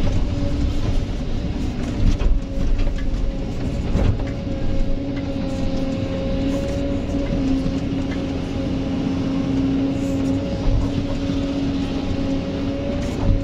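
Kobelco hydraulic excavator's diesel engine and hydraulics running steadily under load, heard from inside the cab, with a few knocks and rattles, the sharpest about four seconds in, as the bucket digs soil and dumps loads into a dump truck.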